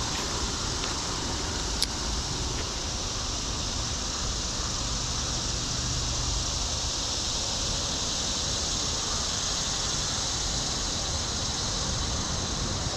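Steady rushing of flowing creek water, with a single sharp click about two seconds in.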